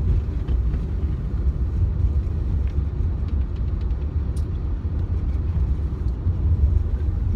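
Steady low road rumble inside a moving car's cabin at highway speed.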